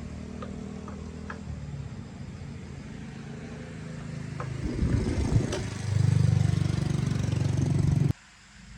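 Motorbike engine running steadily, then revved to a louder, higher-pitched steady run about two-thirds of the way in, which stops abruptly near the end. A few light clicks come over it early on.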